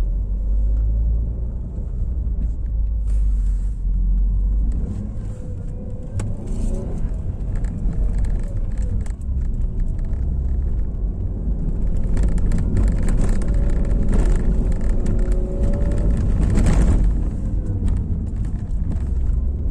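2010 Fiat Palio on the move: steady low road and tyre rumble with engine noise, with a few faint knocks and pitch glides in the middle.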